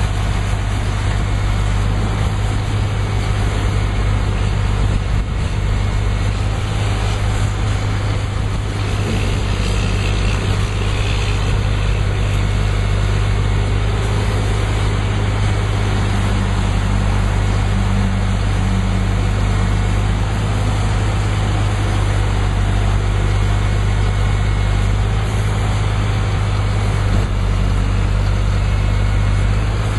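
Engine of a truck-mounted tree spade running steadily with a low, even hum.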